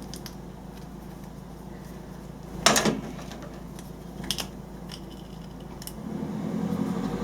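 Two strips of Dual Lock reclosable fastener being pressed together: a sharp snap a little under three seconds in, then two lighter clicks, as the mushroom-headed strips lock into each other. A low steady hum comes in near the end.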